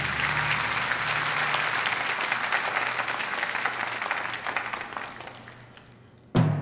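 Audience applause that fades away over about six seconds, over the dying ring of timpani. Near the end a sudden loud drum hit starts a new rhythmic run of strikes.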